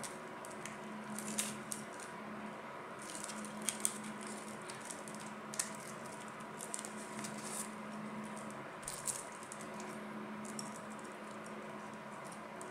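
Thin protective plastic wrap crinkling and rustling in scattered short bursts as it is picked and peeled off a wooden watch, over a steady faint hum.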